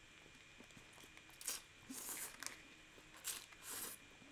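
Close mouth sounds of a person eating instant yakisoba noodles: about four short hissing slurps while chewing a mouthful, quiet in between.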